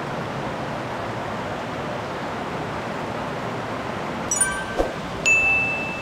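Stream water rushing over rock ledges in a steady hiss. Near the end a brief twinkling chime and a short thud, then one clear high ding that rings for about a second.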